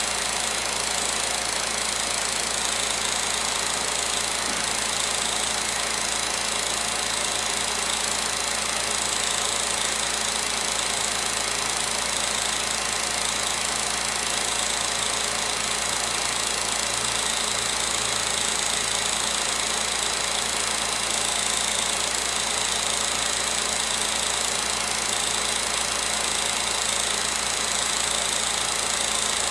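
16mm film projector running: a steady motor hum with the even clatter of the film mechanism, unchanging throughout.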